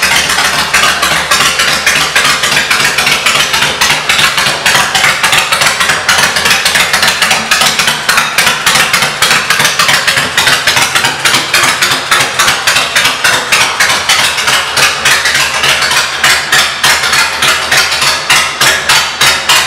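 Honda VTX 1300's V-twin engine idling steadily through aftermarket exhaust pipes, a rapid, even pulsing beat.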